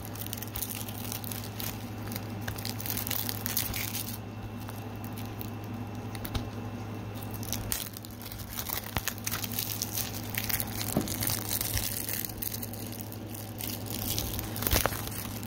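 Packaging being handled and worked open by hand: ongoing crinkling and rustling with scattered small clicks and tearing sounds, over a steady low hum.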